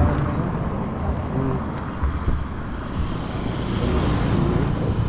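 Wind buffeting the microphone outdoors, a steady low rumble that rises and falls a little, with faint voices in the background.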